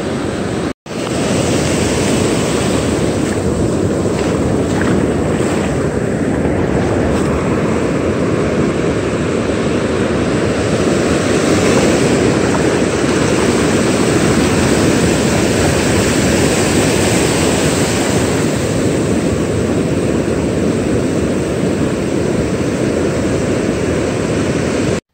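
Loud, steady rushing noise of breaking surf and wind on the microphone, with a momentary cut-out just under a second in.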